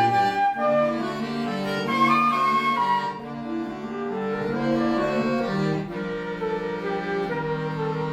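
Bayan (button accordion) playing a slow instrumental passage: a melody over held chords, with the notes changing every half second or so and the chords more sustained in the second half.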